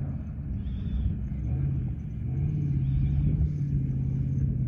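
Ford Bronco's engine pulling steadily as it climbs a sandy slope, heard from a distance over a low rumble. The engine note grows louder and steadier about halfway through.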